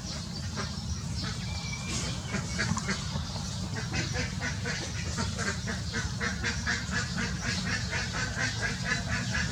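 Birds calling in short repeated notes. From about four seconds in the notes come as a steady run of about four a second, over a steady low rumble.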